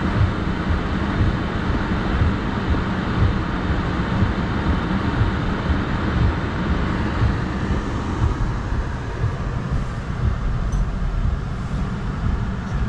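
Heavy rain on a car, heard from inside the cabin: a steady low rumble of the car and wet traffic under an even hiss of rain, the hiss easing a little about eight seconds in.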